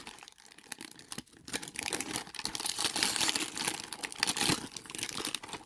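Blind-bag packaging being crinkled and torn open by hand, a busy crackling that picks up about a second in.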